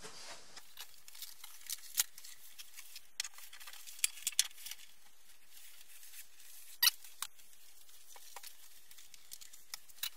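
Scattered light clicks and taps as a large Wacom Cintiq pen display is handled and fitted onto an Ergotron LX monitor arm, with sharper clicks about two, four and seven seconds in.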